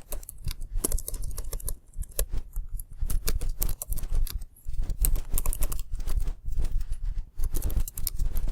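Typing on a computer keyboard: runs of quick key clicks, irregular, with short gaps, over a low steady rumble.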